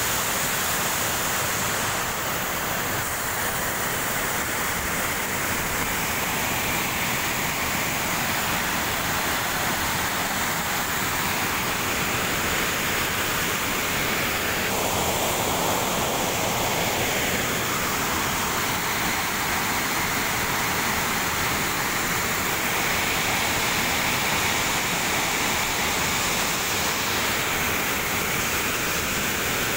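Small waterfall pouring into a rocky pool: a steady rush of falling water that changes tone a little about halfway through.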